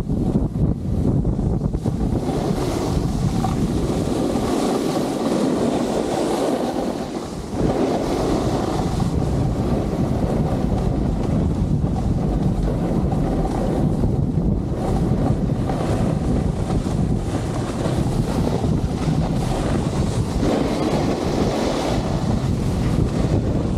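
Wind buffeting the camera microphone at speed during a descent, mixed with the steady hiss and scrape of sliding over packed snow, with a brief lull about seven seconds in.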